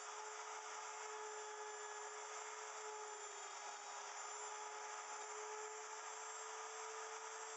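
Wood router in a router milling machine running with a steady high whine while it cuts square mortises through a small wooden block.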